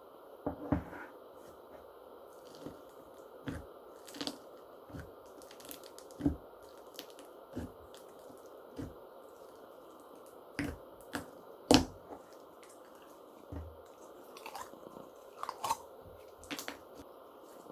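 Slime being squeezed and pressed by hand, giving irregular sticky clicks and pops, with the loudest pop about twelve seconds in.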